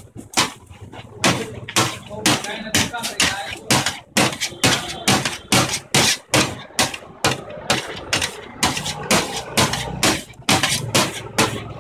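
Metal spatula clanking and scraping on a large flat steel pan as shawarma meat is chopped and turned, in rapid, irregular strikes about three a second.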